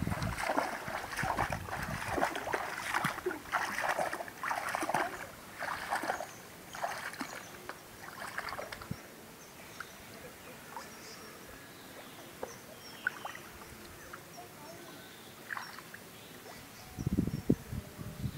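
Legs wading through shallow water, splashing about once a second, then a quieter stretch of trickles and small drips as a cylindrical net eel trap is handled in the water, with heavier splashing near the end as the trap is gripped to lift it.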